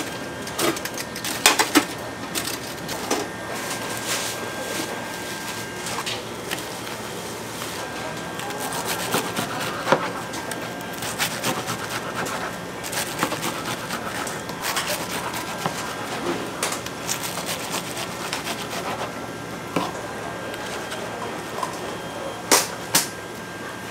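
Food-preparation clatter: irregular clicks and knocks of utensils and containers over a steady hiss, with the sharpest knocks about a second in and near the end.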